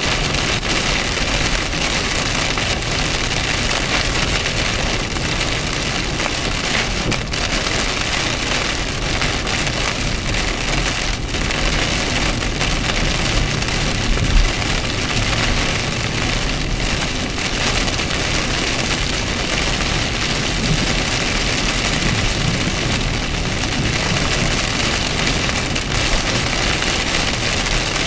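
Heavy rain falling on a moving car, a steady dense hiss, with the low rumble of the car and its tyres on the wet road underneath.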